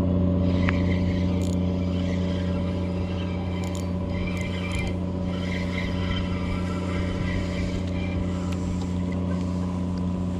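A motor running steadily at constant speed, a low, even engine drone.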